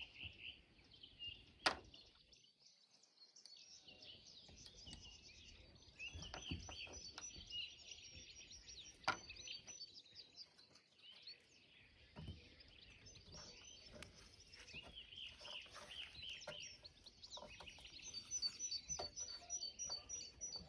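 Small birds chirping and twittering, with a fast, high, even trill about a third of the way in and again near the end. Two sharp clicks stand out, one near the start and one near the middle.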